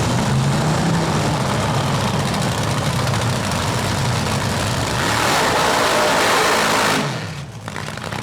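Supercharged nitromethane-burning drag-racing engines running loud and rough after being fired up. About five seconds in they rev harder for roughly two seconds, then the sound drops off suddenly.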